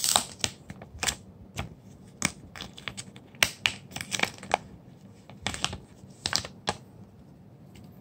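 Hard clear plastic trading-card case handled and pried at by fingers: a run of irregular sharp clicks and taps of rigid plastic, stopping near the end.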